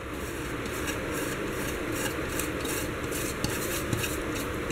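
Gram flour frying in hot ghee in a kadhai, sizzling softly while a spatula scrapes and stirs it around the pan in repeated short strokes.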